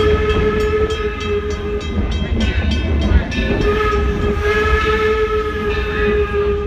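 Steam whistle of the locomotive Torch Lake blowing long blasts: one ends about two seconds in, and after a short gap a second long blast sounds until near the end. Beneath it the train's wheels rumble and click over the rails.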